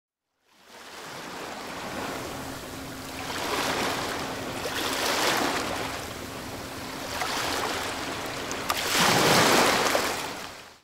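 Ocean waves washing in and out, swelling and ebbing three times, fading in at the start and out at the end.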